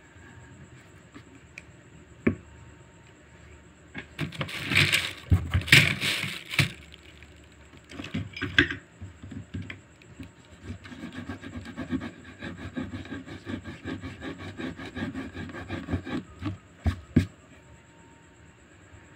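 Pencil scratching and rubbing on paper clipped to a hard board: loud rubbing strokes about four seconds in, then a run of quick short strokes later on, with a few sharp taps.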